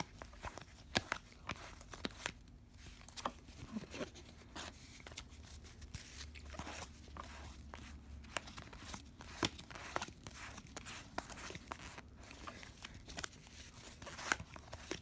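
A stack of hockey trading cards being thumbed through by hand: irregular quick snaps and slides of card stock against card, several a second.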